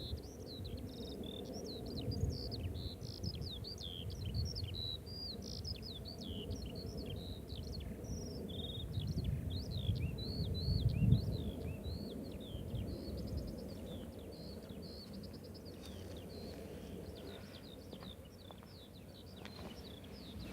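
Songbirds chirping and singing in many quick, varied notes, thinning out near the end, over an uneven low rumble.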